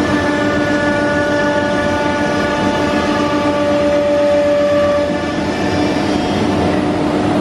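Holztek CNC nesting router running, with its vacuum hold-down pump and dust extraction: a loud, steady machine noise carrying several steady whine tones. A few of the higher tones cut off about five seconds in while the low hum carries on.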